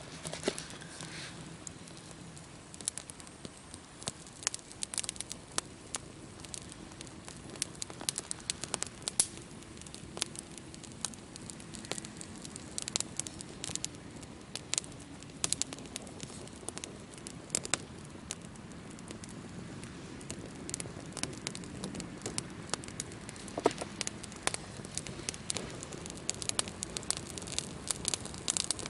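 Irregular crackling: sharp clicks and snaps, several a second, with a few louder pops, over a steady low background noise.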